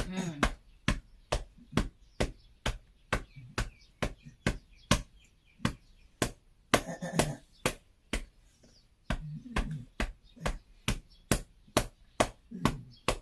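A cupped hand patting rhythmically on an elderly patient's back, a little over two pats a second. This is chest percussion (pai bei) to loosen phlegm from a cough that the patient cannot bring up.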